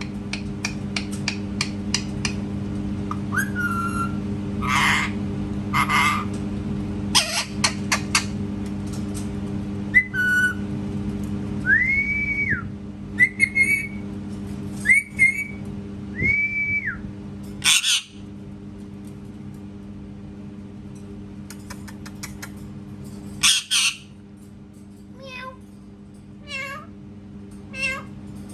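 Pet parrot giving short harsh calls, then several clear whistles that rise, hold and fall, followed by a few short chirps. A steady low hum runs underneath.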